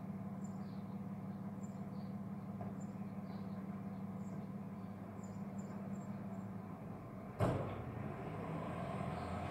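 DAF mini refuse truck's diesel engine running steadily at a distance, with small birds chirping faintly. About seven seconds in, a cab door bangs shut, and the engine note changes as the truck moves off.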